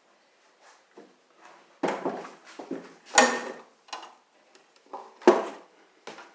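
Metal tools and small parts clattering and clanking as someone rummages through them, with a few loud clanks among quieter knocks.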